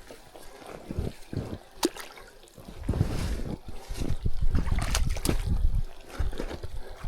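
A small stream trickling and splashing at a water crossing, with irregular thumping footfalls that grow louder about three seconds in.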